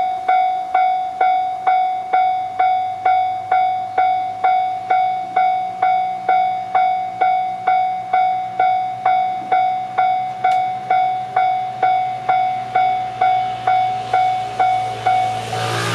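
Japanese railway level-crossing warning alarm ringing its electronic bell, an even pitched clang about twice a second, while the crossing is closed for an approaching train. Near the end the noise of the arriving train swells up over it.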